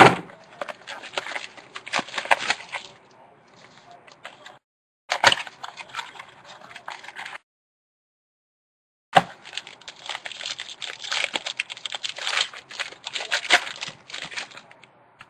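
Trading-card packaging being torn open and crinkled, a dense run of sharp crackles and rustles, with a sudden dead-silent gap of under two seconds midway.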